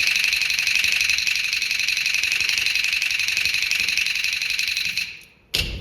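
Chinese opera percussion ensemble playing a fast, continuous roll that stops about five seconds in, followed by a single heavy strike just before the end.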